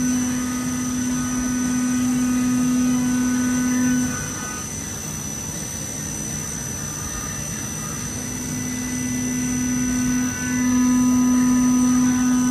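Bridgeport VMC 800XP2 CNC vertical machining center milling a part under flood coolant. A steady low cutting tone with a high whine and coolant hiss. The cutting tone drops away about four seconds in, comes back about four seconds later, and breaks briefly near the end.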